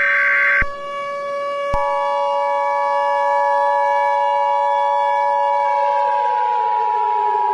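Emergency-alert tones: a steady siren tone with many overtones, joined with a click about two seconds in by the two-tone EAS attention signal. Near the end the siren tone winds down in pitch while the two-tone signal holds steady.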